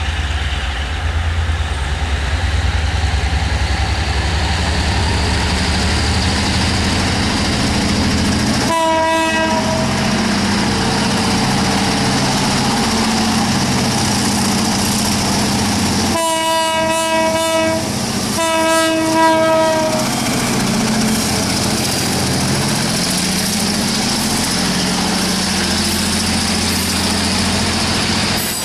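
EMD G22CW diesel-electric locomotive running, its diesel engine giving a steady low rumble. The air horn sounds a chord: one short blast about nine seconds in, then two longer blasts between about sixteen and twenty seconds.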